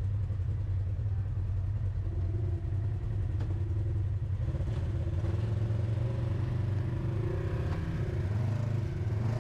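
Off-road ATV or side-by-side engine running steadily with a low drone, its note rising a little about two seconds in, with light clatter from the ride.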